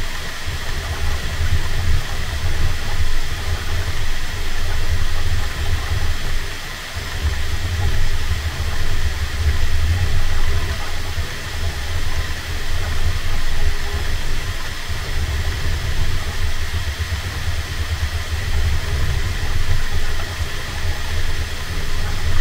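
Bambu Lab 3D printer running near the end of a print: a steady mechanical hum from its motors and fans, with an uneven low rumble and a faint steady high whine.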